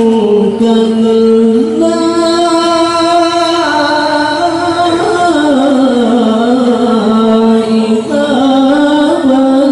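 A man reciting the Quran in the melodic tilawah style into a handheld microphone, holding long drawn-out notes with ornamented turns. The pitch steps up about two seconds in, glides down through the middle, and climbs again near the end.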